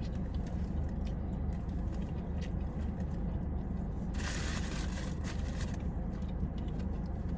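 Car air conditioning running with a steady low rumble, with faint scattered clicks of handling. About four seconds in, a brief rustling hiss lasts under two seconds.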